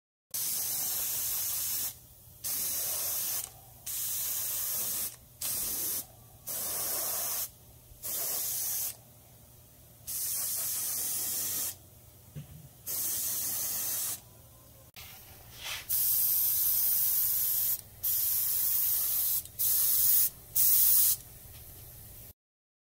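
An airbrush spraying Cerakote coating onto small metal hardware. It hisses in about a dozen short on-off bursts, each a second or so long, as the trigger is pressed and released.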